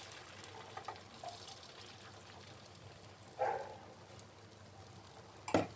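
Batter poured from a ladle into an oiled wok, with a faint frying hiss. The ladle clatters against the pan about three and a half seconds in and knocks sharply on it near the end.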